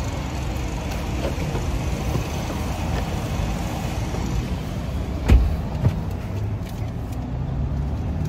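Steady low rumble of parking-lot traffic. A little past halfway comes a sharp thump, then a lighter knock about half a second later: a car door being worked as someone gets into the SUV.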